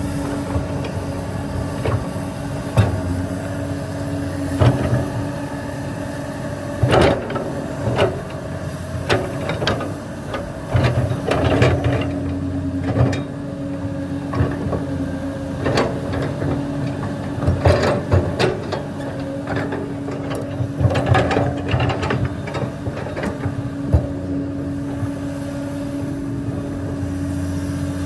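Hydraulic excavator's diesel engine running steadily, with irregular clanks, knocks and scraping as the bucket digs and dumps limestone rock, busiest through the middle.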